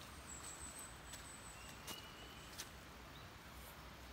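Faint outdoor background with a thin, high, steady whistle in the first second or so and two small clicks about two and two and a half seconds in, from hands handling a bundle of pine needles and an empty Bic lighter.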